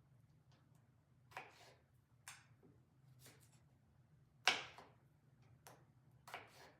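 Kitchen knife cutting through food and striking a cutting board: about five sharp, irregular knocks, the loudest about four and a half seconds in.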